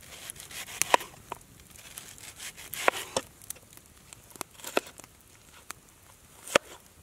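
Scattered sharp snaps and taps at irregular moments, from a burning log campfire crackling and a knife slicing onion into a metal frying pan.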